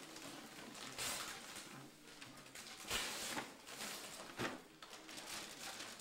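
Wrapping paper rustling and tearing as a present is unwrapped, in several short bursts, the loudest about three seconds in.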